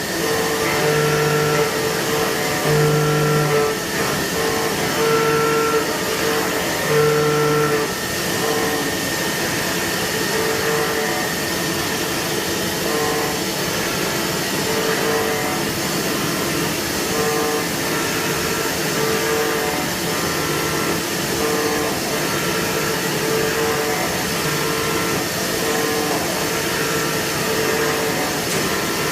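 CNC milling machine cutting a metal core box mold: steady machining noise with a humming tone that comes and goes in short spells about once a second, stronger in the first several seconds.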